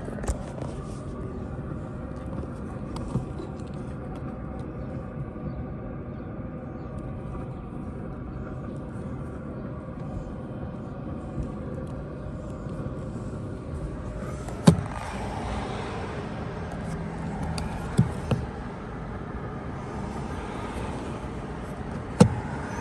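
Steady hum inside a car's cabin, with three sharp clicks or taps in the second half as hands work the dashboard trim.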